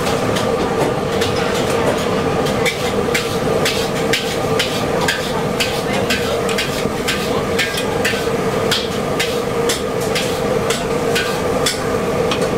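Metal spatula scraping and knocking against a large steel wok as eggs in oil are stirred next to noodles: many quick, irregular clinks over a steady hum.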